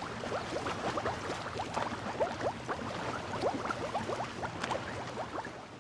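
Underwater bubbling ambience: a steady wash with many small bubbles gurgling and popping in quick short rising blips. It fades out at the very end.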